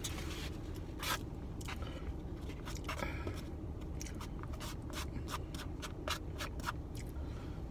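A utensil scraping and clicking in a takeout food container, a string of short sharp scrapes and ticks, over a steady low rumble.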